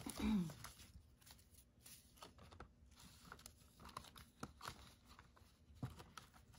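Paper banknotes rustling and crinkling, with short irregular crackles as the bills are flipped through and slid in and out of a plastic cash envelope. A brief hum of a voice, falling in pitch, comes right at the start.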